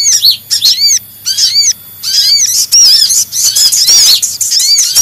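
Bird-trapping lure recording of busy kolibri ninja (sunbird) calls mixed with sogon calls: loud, rapid series of short, high, arching chirps, several a second, broken by brief pauses.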